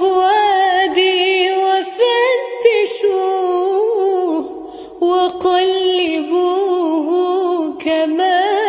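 A single voice singing a long melismatic line of an Arabic mawwal, held notes bent with wavering ornaments and no instruments heard. It breaks off briefly about four and a half seconds in, then goes on.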